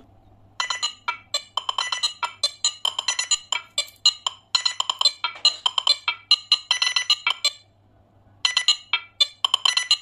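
Music made of a quick run of short, bright, plinking percussive notes, with a brief pause about eight seconds in.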